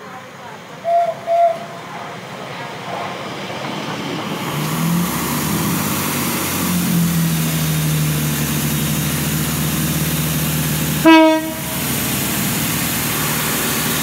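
Two short horn toots from an approaching Elizabeth line Class 345 electric train about a second in. Then a GWR Class 165 Turbo diesel multiple unit runs in, its engines giving a steady low hum over wheel and rail noise, and sounds one short, loud horn blast about 11 seconds in.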